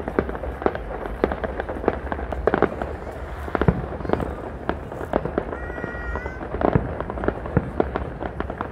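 Fireworks going off: a dense, irregular run of crackles and pops with a few louder bangs, the strongest a little before four seconds in.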